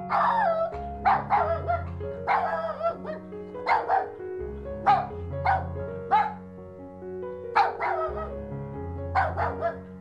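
A dog barking and yipping, a dozen or so short barks that drop in pitch, spaced through the stretch, over background music with steady bass notes.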